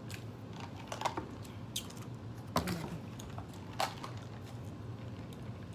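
Sips of a soft drink through a straw from a paper cup, heard as a handful of small, scattered clicks and mouth noises over a low steady hum.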